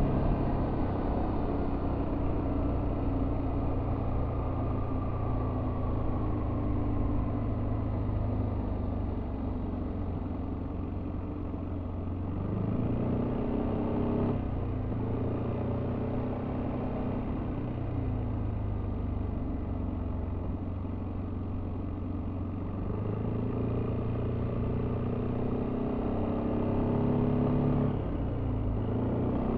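Yamaha Tricity 300 scooter's single-cylinder engine with its stock exhaust, running under way. The engine note eases off and picks up again several times as the throttle is closed and reopened, with dips about twelve, fourteen, eighteen and twenty-eight seconds in.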